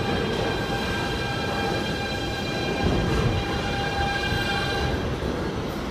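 Siemens R160B subway train passing along the platform: rumble of wheels on rail under a steady electric whine from its propulsion. The whine fades out near the end while the rumble carries on.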